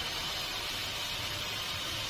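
Sawmill machinery running: a steady, even hiss with a faint low hum underneath and no change in level.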